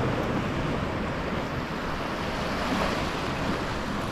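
Small sea waves breaking and washing up a sandy shore in a steady hiss, with wind rumbling on the microphone.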